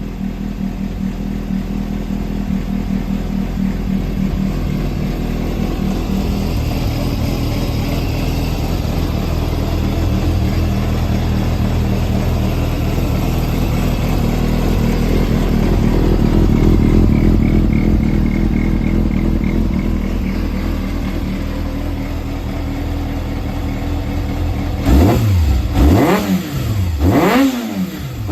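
Yamaha XJR400's air-cooled inline-four engine idling steadily, then revved in a few quick throttle blips near the end, each rising and falling sharply. The seller presents it as running without abnormal engine noise.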